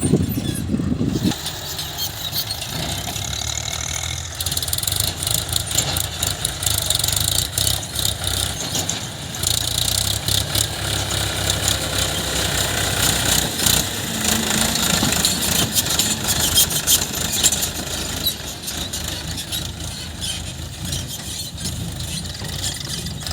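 Heavy diesel machinery engine running steadily, with a dense clatter of short knocks over it throughout and a brief louder surge at the very start.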